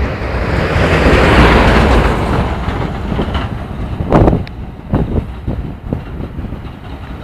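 Rushing noise and low rumble of a moving road vehicle, swelling loud for the first couple of seconds, then several sharp knocks about four and five seconds in.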